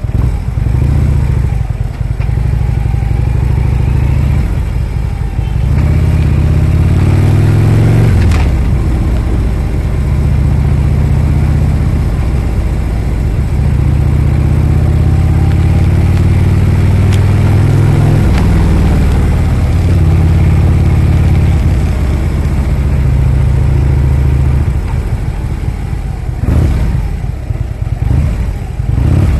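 Harley-Davidson V-twin engine running under way, its pitch climbing twice as it accelerates, then easing off near the end.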